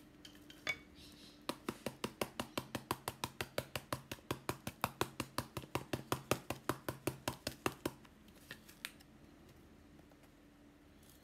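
Quick, even tapping on a small box of chaat masala as it is shaken out over a glass bowl, about six taps a second, starting about a second and a half in and stopping near eight seconds.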